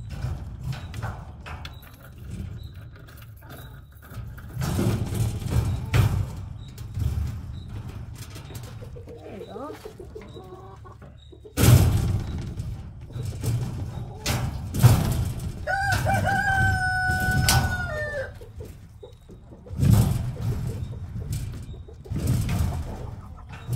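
A rooster crows once, about two-thirds of the way through, in one long call held level that drops at the end. Hens cluck softly before it. Loud thumps and knocks with rustling come and go throughout.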